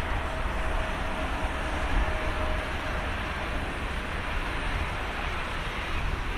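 Airliner jet engine sound effect: a steady rumbling roar with a strong low rumble, cutting off abruptly at the end.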